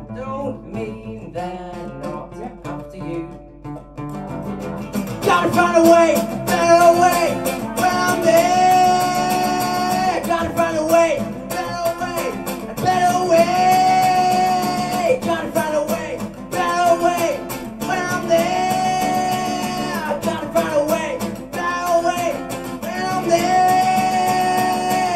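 A young man singing with a strummed acoustic guitar. The guitar plays alone at first, and the voice comes in about five seconds in, holding long notes.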